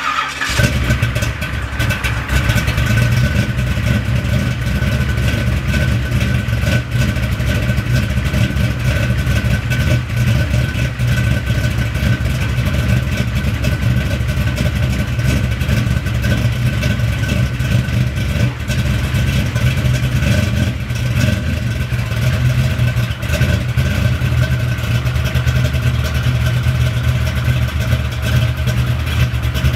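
Box-body Chevrolet Caprice's engine firing up from cold, then idling steadily and loudly with a deep low drone.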